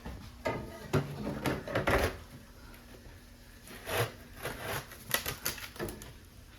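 Metal stovepipe sections being handled and worked back into place: irregular clanks, knocks and scrapes in two clusters, one early on and one about four seconds in.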